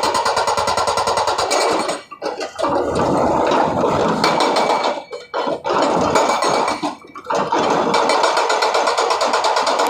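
Hydraulic rock breaker on a SANY 210 excavator hammering in rapid, evenly spaced blows, stopping briefly about two, five and seven seconds in.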